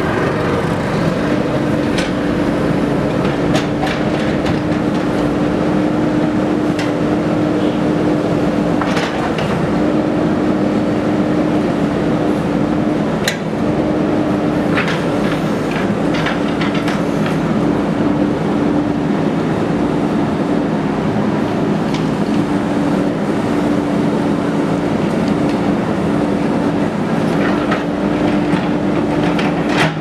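JCB 3DX backhoe loader's diesel engine running steadily under load as the backhoe arm digs, its steady tone dropping out and returning several times. Occasional sharp clicks and knocks sound over it.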